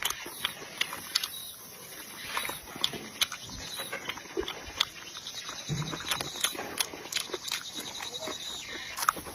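Close-miked chewing and lip-smacking: a person eating, with a dense run of irregular wet clicks and smacks.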